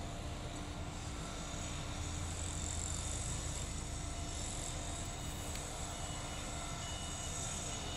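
Steady low rumble of heavy construction machinery working across the site, heard from a distance, with a few faint short beeps in the second half.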